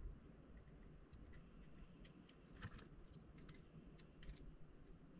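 Faint, scattered small clicks and ticks from the plastic body and parts of a GoPro Hero 7 camera being handled during disassembly, over a low steady hum.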